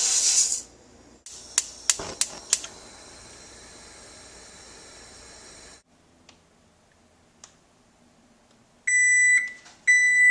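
Microwave oven being used to cook instant rice: a loud rushing hiss cuts off within the first second, a few sharp clicks follow, and the oven hums steadily until it stops about six seconds in. Near the end come two long, high beeps, the oven's end-of-cycle signal.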